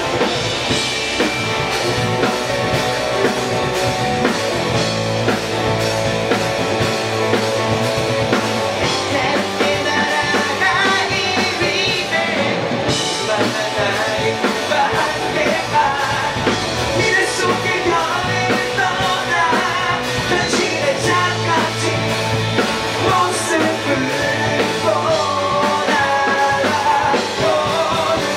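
Rock band playing live: a man sings lead over keyboard, electric guitar, bass guitar and drum kit.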